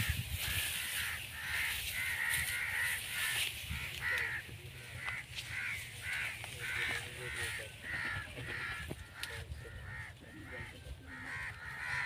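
A flock of birds calling: short calls following one another a couple of times a second, a little sparser in the second half, over a low rumble.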